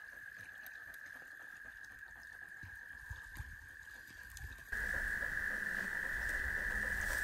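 A chorus of frogs trilling, a steady high unbroken trill that grows louder about five seconds in, where a low rumble joins it.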